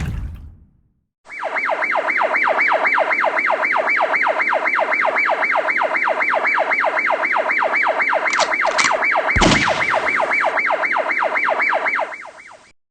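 Fast warbling siren, a yelp-style rise and fall in pitch about three to four times a second. It starts about a second in after a short burst of noise and cuts off near the end, with a thump about two-thirds through.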